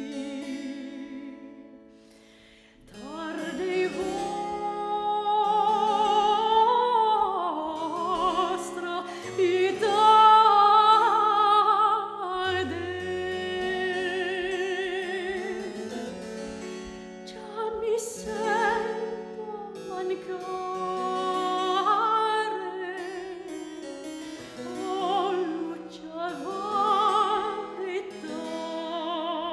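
A soprano sings an early-17th-century Italian song with vibrato on the held notes, accompanied by a double-manual harpsichord. There is a short break about two seconds in, then the voice and harpsichord come back in.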